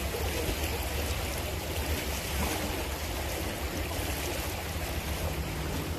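Steady rushing of water flowing in an irrigation channel, with a low rumble underneath.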